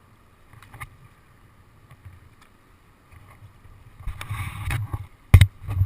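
Kayak paddling on a river: a paddle stroke splashing for about a second, then a single loud, sharp knock and a smaller one just after, with low wind rumble on the microphone.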